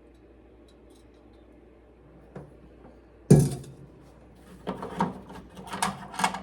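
A bicycle chain cleaning tool and chain being handled: one sharp knock about halfway through, then a quick run of clinks and clatters near the end.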